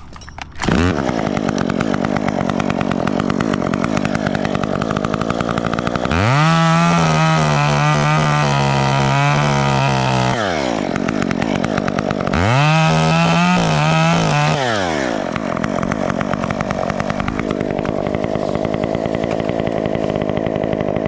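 Top-handle chainsaw running throughout, with two long stretches where the pitch rises, holds steady and then drops back, as it cuts through a dead branch.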